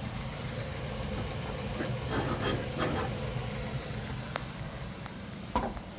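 Kitchen handling sounds: a few light knocks and clinks of cookware being moved, over a steady low hum.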